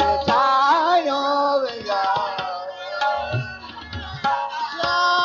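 Multani Kafi music: gliding, ornamented vocal phrases and held notes over tabla, with sharp strokes and a few deep bass drum strokes.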